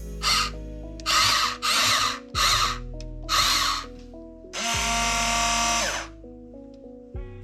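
Huina 1592 RC excavator's small electric motors whirring in short bursts as its controls are worked: five brief bursts, then a longer one of about a second, over background music.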